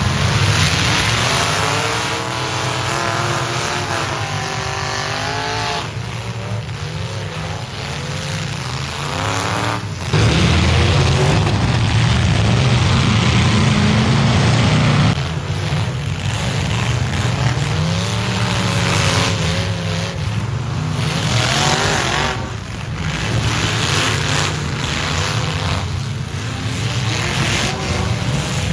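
Demolition derby trucks' engines revving hard, several at once, their pitch rising and falling, louder for a few seconds about a third of the way in.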